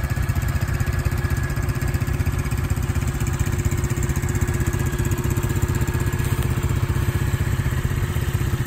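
Small ATV engines idling steadily, a rapid even pulsing with no revving.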